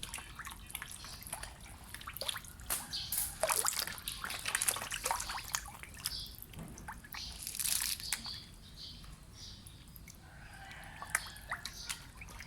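Catfish splashing at the water surface as they take food: a run of irregular splashes and drips, busiest in the first two-thirds and thinning out toward the end.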